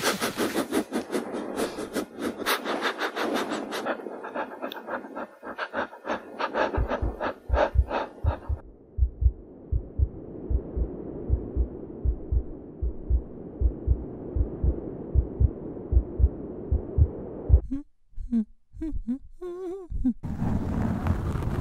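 Dry fallen leaves crackling and rustling as they are handled, a fast run of crisp clicks. Then a quick, steady heartbeat-like thumping over a low hum, broken near the end by a short pause with a few wavering tones.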